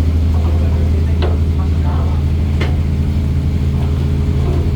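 Fishing boat's engine running steadily with a low hum, with two sharp knocks about a second and a half apart.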